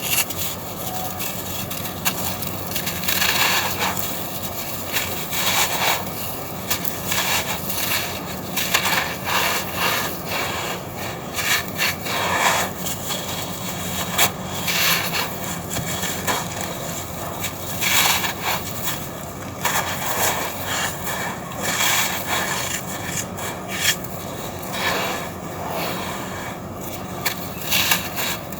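Dry red sand-and-cement chunks being crushed and crumbled: a continuous run of irregular gritty crunches and crackles.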